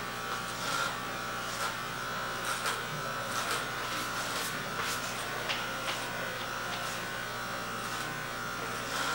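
Corded electric hair clippers with a guard comb, buzzing steadily as they are run up the back of a head trimming short hair, with short scratchy rasps now and then as the blades pass through the hair.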